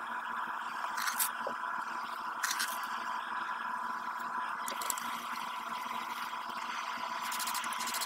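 Aqua regia holding dissolved gold fizzing in a glass beaker as urea is spooned in, the urea breaking down the leftover nitric acid. A steady hiss, with a few light clicks of the spoon against the glass.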